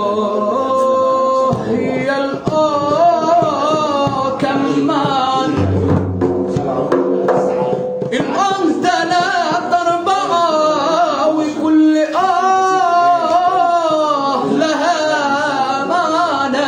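Egyptian popular music: a wavering, heavily ornamented lead melody over drums and percussion, with a low bass hit about six seconds in.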